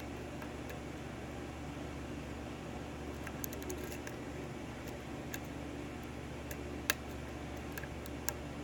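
Faint metallic clicks of lock picks working the pins of a 6-pin Dorma lock cylinder during single-pin picking: scattered light ticks, a quick cluster about three and a half seconds in and a sharper click near seven seconds. A steady low hum of room or fan noise lies under them.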